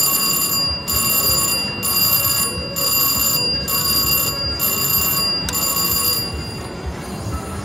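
Slot machine's electronic win bell ringing as a 15-credit win counts up onto the credit meter. It comes in about seven pulses of just under a second each and stops about six seconds in. Casino background noise runs underneath.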